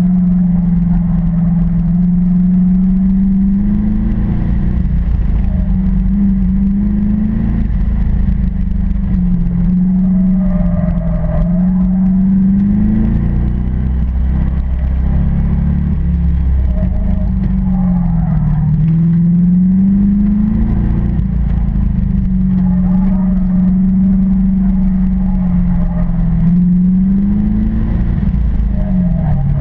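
1992 Chevrolet Corvette's V8 engine heard from inside the open-roofed cabin under hard autocross driving, its pitch rising and falling again and again as the car accelerates and lifts through the course.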